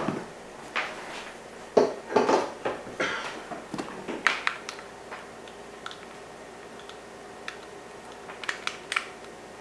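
Scattered light clicks, knocks and short rustles of things being handled on a tabletop, most of them in the first few seconds and a few small clicks near the end. A faint steady hum sits underneath.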